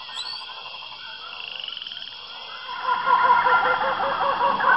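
Frogs croaking at night, a chorus of rapidly repeated short calls that grows louder about three seconds in.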